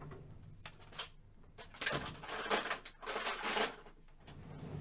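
Rummaging in an open tool-chest drawer: small items clatter and rattle in a few short bursts.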